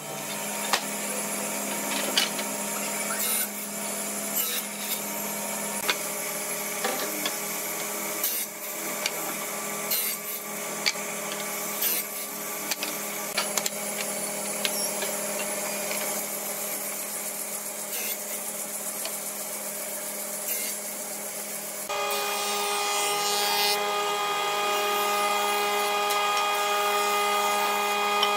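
Woodworking machinery running: a table saw's steady motor hum with frequent sharp knocks and clatter of boards being handled. About three quarters of the way in it changes suddenly to a combination jointer-planer running as a board is fed over it, a steadier sound with several clear tones.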